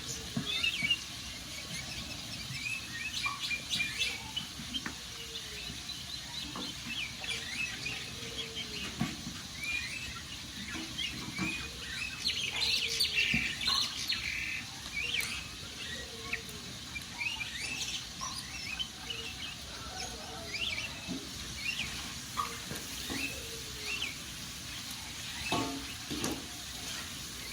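Birds chirping and twittering over a crackling wood fire, with a low note repeating about once a second.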